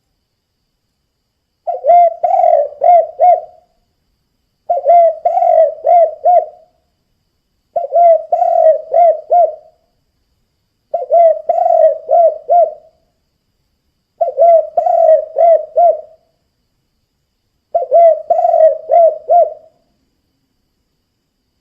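Spotted dove (tekukur) cooing: six phrases, each a quick run of four or five coos lasting about two seconds, repeated roughly every three seconds.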